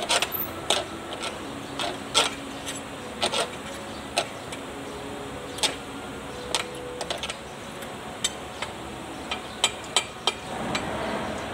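A hand wrench working the hub bolts on a Kubota tractor's rear wheel: sharp metallic clicks and clinks at irregular intervals. A rushing noise builds near the end.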